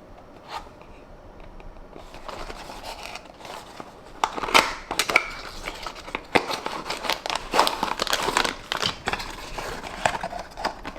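Toy packaging being handled during an unboxing: irregular crinkling with sharp clicks and taps. It starts about two seconds in and grows louder about four seconds in.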